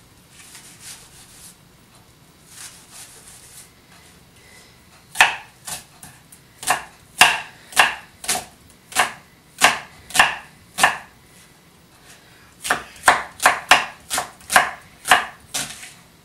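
Chef's knife chopping an onion on a wooden cutting board. The first few seconds hold only soft slicing, then the knife strikes the board in an even rhythm of about two chops a second. After a short pause the chops come slightly faster.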